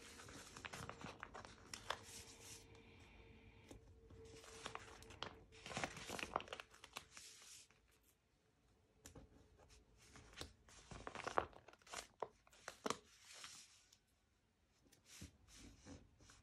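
Paper stickers being peeled off their backing sheet and pressed onto a magazine page: faint paper rustling and peeling, then scattered light taps and clicks in the second half.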